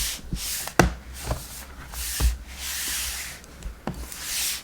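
Repeated soft swishing strokes with a few light taps between them: a brush and hands working over the open 2012 MacBook Pro's aluminium case.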